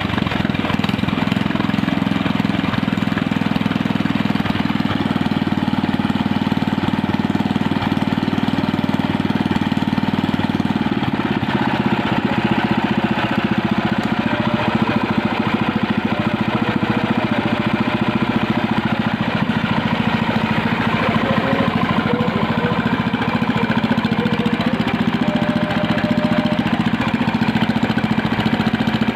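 Small engine running steadily at idle, its note shifting slightly about eleven seconds in.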